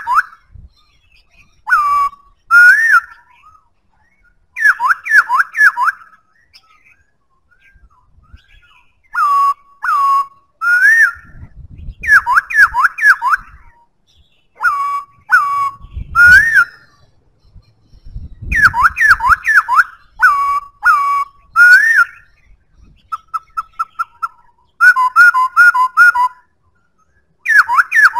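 Black-throated laughingthrush singing: loud, clear whistled phrases of quick up-and-down slurred notes, given in bursts with short pauses between. Near the end comes a run of short, rapid repeated notes.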